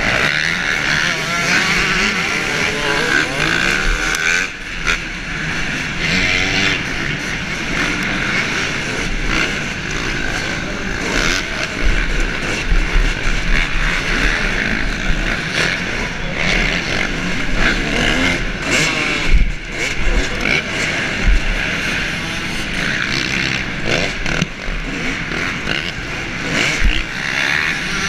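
Dirt bike engine revving up and down through a motocross race, heard from a camera mounted on the bike, with other racing bikes' engines close by.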